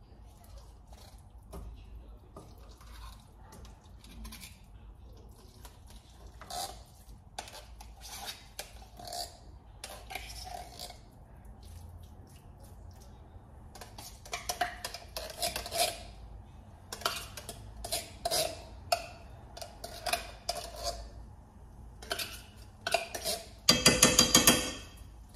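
A metal spoon scraping and clinking inside a tin can and against a nonstick frying pan as canned corned beef hash is scooped out, in a run of repeated scrapes that grows busier in the second half. A loud rasping scrape about a second long comes near the end.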